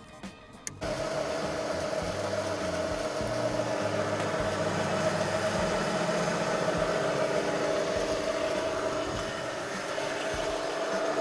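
Toshin K68 small pressurized kneader switching on about a second in and running steadily, its motor and mixing drive giving a constant hum.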